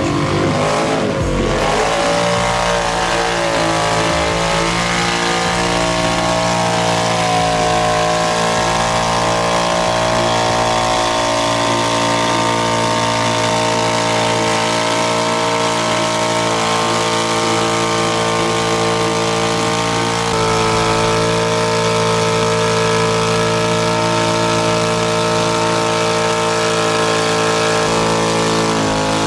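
Side-by-side UTV engine revved hard, then held at a steady high pitch under load as the big tires churn in thick, deep mud, with a small step in pitch about two-thirds of the way through.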